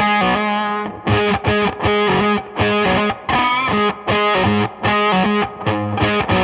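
Electric guitar played through a one-knob Colorsound-style fuzz pedal, giving a dark, dirty fuzz tone with a tone-bender edge. It plays a choppy riff of short notes with brief gaps between them, and one note is bent upward about three and a half seconds in.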